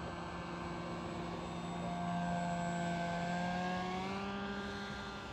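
Motor and propeller of a radio-controlled model paramotor running as a steady hum. It grows louder about two seconds in, and its pitch rises about four seconds in as it speeds up.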